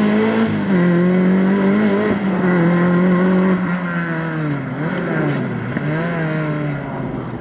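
Hatchback rally car's engine revving hard and pulling away, its pitch holding, stepping down and dipping with gear changes and lifts off the throttle for the slalom. It grows fainter over the last few seconds as the car draws away.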